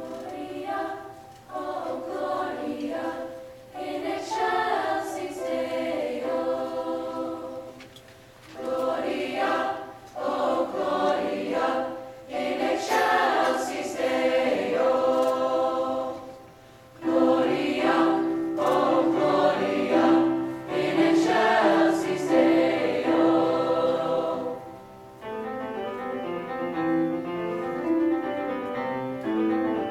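Large mixed choir singing with grand piano, in loud phrases separated by brief pauses. Near the end the singing stops and the piano plays on alone, more quietly.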